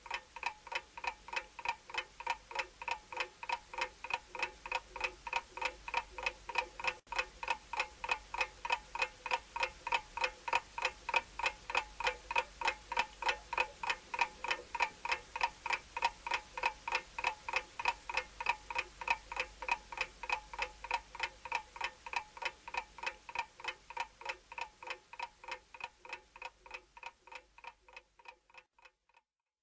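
Ticking clock sound effect: a steady, fast run of even, slightly ringing ticks, growing fainter over the last few seconds.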